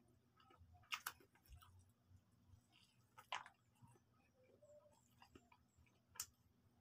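Crispy fried chicken being torn and eaten by hand: a few sharp crackles of the crust, two close together about a second in, one near the middle and one near the end, with faint chewing between.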